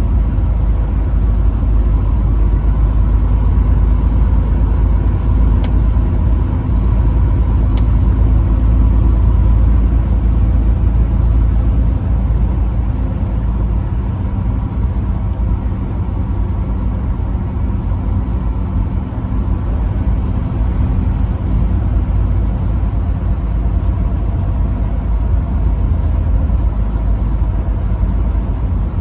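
Truck engine running steadily under a continuous low road rumble while driving, with no horn sounding.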